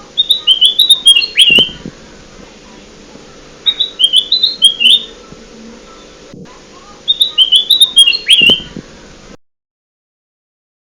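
Recorded lure song of a kutilang emas (golden bulbul): three phrases of quick chirpy whistled notes about three seconds apart, each the same repeated pattern. Near the end the sound cuts off suddenly to dead silence, a gap in the looped track.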